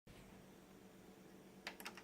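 Near silence with a faint steady hum, then a few faint clicks near the end.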